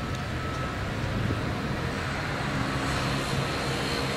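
A tram running on its track, with a faint motor hum over the steady low rumble of city traffic, slowly growing louder.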